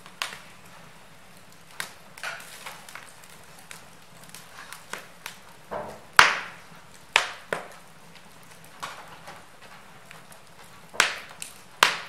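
Wood logs burning in a fireplace, crackling with irregular sharp pops over a soft hiss; the loudest pop comes about six seconds in.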